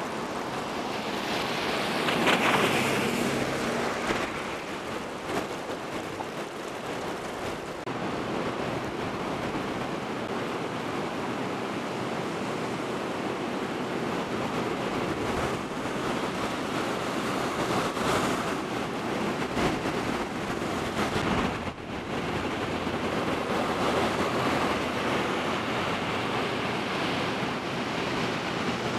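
Muddy floodwater rushing across a flooded street in a steady churning torrent. It swells louder briefly about two seconds in and dips for a moment about three quarters of the way through.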